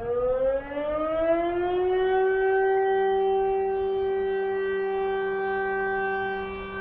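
Civil defense siren sounding: its tone rises over about the first two seconds, then holds steady.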